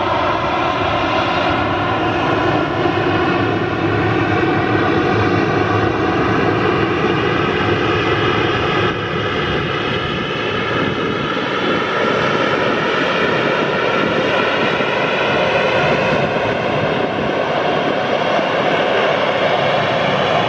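Boeing 737-800 CFM56 jet engines running loud and steady: a dense drone carrying several held tones that drift slightly in pitch over a rushing hiss.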